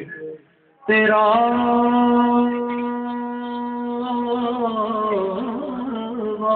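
A man singing solo in Urdu: after a short breath pause he holds one long, steady note on the word 'tera', then the pitch wavers into ornamented turns near the end.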